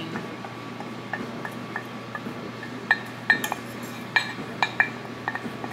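A utensil clinking and tapping against a bowl about ten times at irregular intervals, scraping out the last of a wing sauce.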